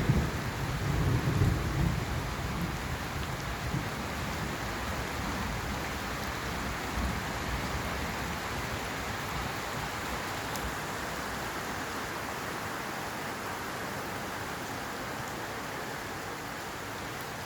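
Steady heavy rain falling, with a low roll of thunder in the first two seconds that dies away into the hiss of the rain.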